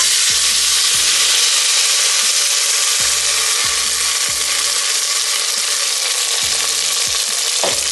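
Food sizzling in hot oil in a pan, starting suddenly and running on as a loud, steady hiss, with a few faint knocks.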